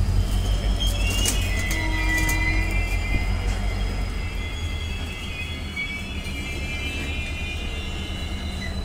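LHB passenger coaches of an Indian Railways express rolling slowly past a platform as the train brakes to a halt: a steady low rumble with drawn-out, high-pitched metallic squeals from about a second in until near the end.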